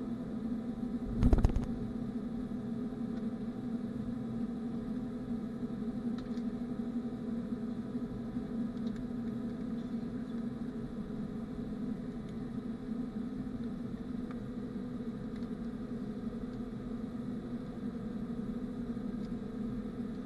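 Cabin noise of a Ryanair Boeing 737-800 rolling on the ground after landing: a steady engine and airflow hum with fixed low tones, broken by one short, loud thud about a second in.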